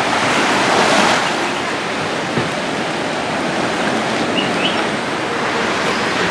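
Small waves washing onto a sandy beach, a steady rushing that swells about a second in.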